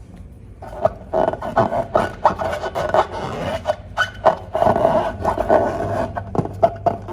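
Hands working slime and rubber balloons: irregular rubbing, squishing and sticky clicking, starting about half a second in.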